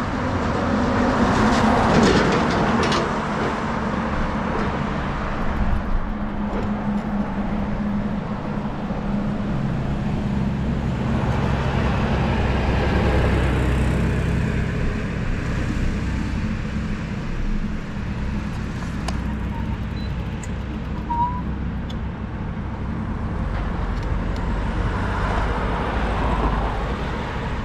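Cars driving past on a city road, each swelling and fading, over a steady low rumble of traffic.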